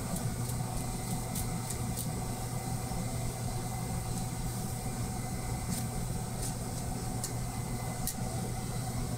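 A steady low mechanical hum, like a motor or engine running, with a few faint sharp ticks scattered over it.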